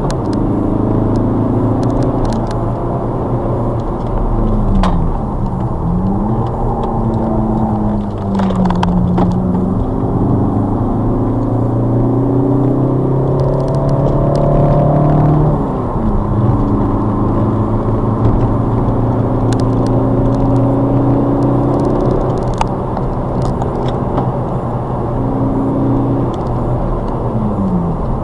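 Ford Focus ST diesel's 2.0-litre four-cylinder turbodiesel engine working hard on track, heard from inside the cabin over steady road and wind noise. Its note holds fairly steady, then dips and climbs again a few times at gear changes and braking.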